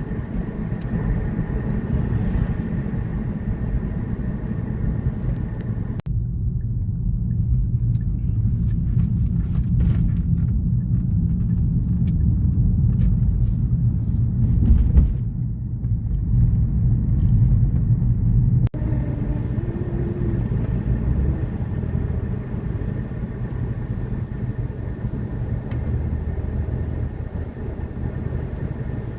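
Steady low rumble of a moving vehicle, shifting abruptly twice.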